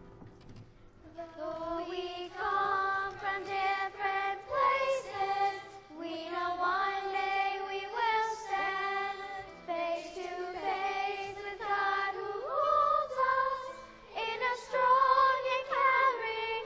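Group of children singing a song with instrumental accompaniment; the voices come in about a second in, after a soft instrumental lead-in.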